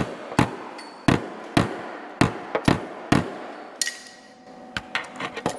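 Hand hammer blows on a tool held against the steel sheet-metal flange of a 1948 Plymouth fender, turning the flange by hand, about two blows a second. After about three and a half seconds the blows stop, a short metallic ring sounds, and a few lighter clicks follow near the end.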